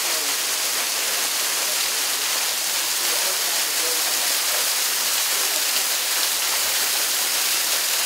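Small waterfall splashing onto rocks: a steady, even hiss of falling water.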